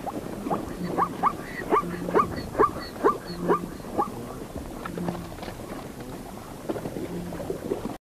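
Farm animals calling: a quick run of short rising calls, about two a second, thinning out after about four seconds, with short low calls between them.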